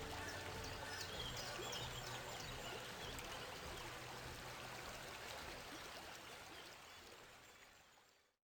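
Steady rushing background noise recorded outdoors, fading out just before the end.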